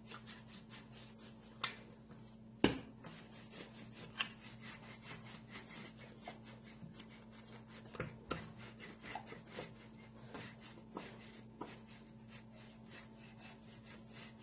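Rolling pin rolling out bread dough on a countertop: faint rubbing with a few light knocks as the pin comes down on the dough and counter.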